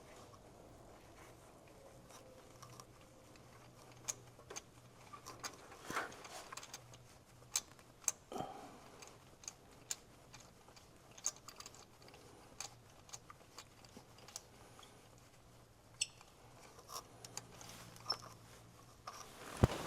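Scattered light clicks and knocks of hand tools and parts being handled while working on the truck's engine, irregular and unrhythmic, with a sharper knock near the end.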